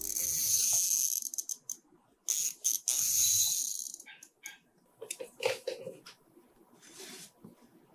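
Rustling and sliding of fabric being handled on a desk, in two louder bursts, followed by scattered light clicks and taps from a ruler and marker.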